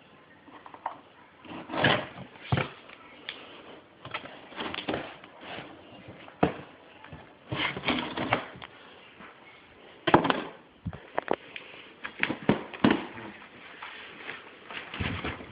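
A cardboard shipping box being opened and its contents handled: irregular rustling and scraping with occasional sharp knocks.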